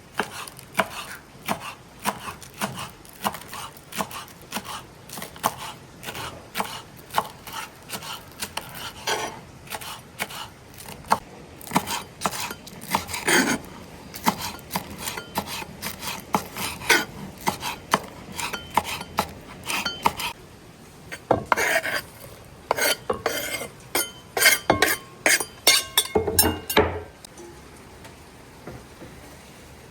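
Kitchen work: a quick, irregular series of knocks and clinks of utensils against dishes, pots and a board, some with a short metallic ring. They stop shortly before the end.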